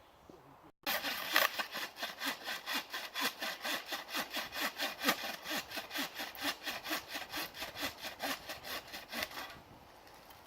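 Hand saw cutting through a piece of firewood with fast, even back-and-forth strokes, starting about a second in and stopping shortly before the end.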